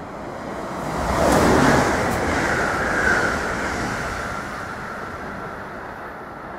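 Passenger train passing through a station at speed: a loud rush of air and wheel-on-rail noise that swells to its peak about a second and a half in, with a steady high-pitched ring over it, then slowly dies away as the train goes off down the line.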